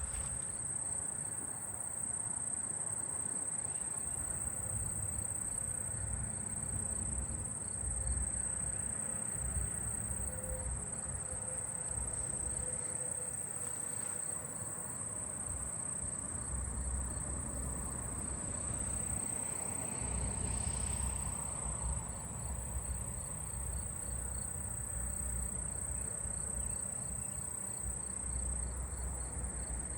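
Insects singing: a steady high-pitched trill that never breaks, with fainter, evenly pulsed chirping beneath it, from fall field crickets and common meadow katydids.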